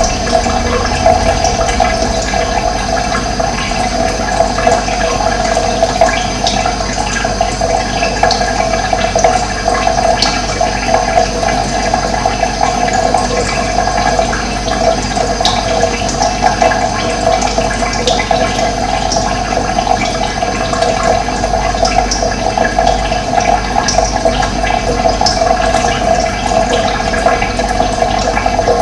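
Running water making a steady, even rushing sound.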